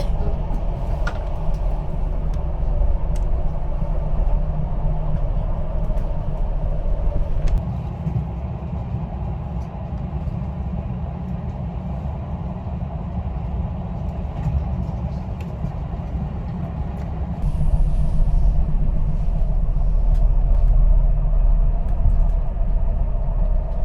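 Passenger train running along the track: a steady rumble that turns quieter about eight seconds in and louder again about seventeen seconds in.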